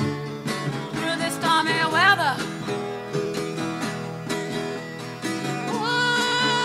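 Song: a woman's voice sings over guitar accompaniment. It slides up and down between notes about a second in, then holds a long steady note near the end.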